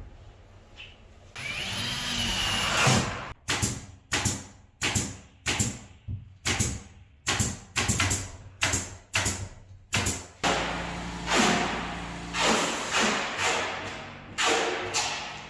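Partition-installation tool work: a power tool whirs briefly with a rising whine, then a steady run of sharp knocks, about two a second, struck over and over.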